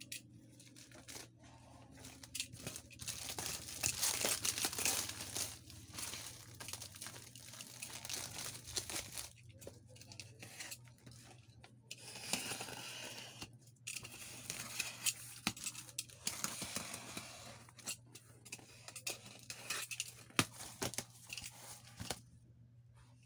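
Thin black plastic bag wrapping being torn and crumpled off a cardboard shipping carton, in irregular bursts of crinkling and tearing with short pauses. Near the end the cardboard flap is pulled open.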